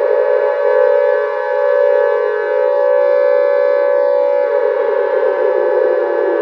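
Fan-made Great Mother Megaphone creature sound effect: a loud, held, siren-like wail with many overtones, its lower edge sinking slowly in pitch.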